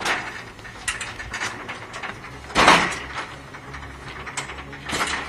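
Metal clanks and rattles from an aluminium scaffold tower being worked on: about six sharp strikes, the loudest and longest about two and a half seconds in.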